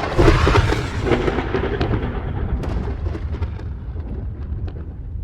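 Sky Zilla Killa fireworks cake firing: a loud burst right at the start, then dense crackling over a deep rumbling echo that slowly dies away.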